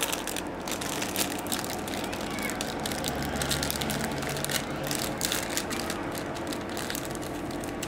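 Plastic ice cream bar wrapper crinkling and crackling as it is pulled open and the bar is slid out, over a steady hum.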